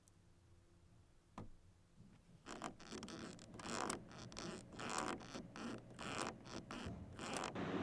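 A single click, then after a pause a quick run of short, irregular rasping strokes for about five seconds that stops just before the end.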